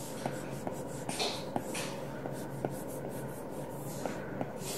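Stylus tapping and sliding on a tablet's screen as a picture is dragged about in a drawing app: scattered light ticks and a few short soft strokes.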